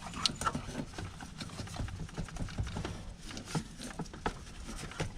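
Irregular light clicks, knocks and scrapes of metal parts as an old alternator is wiggled back and forth to work it free of its mounting bracket.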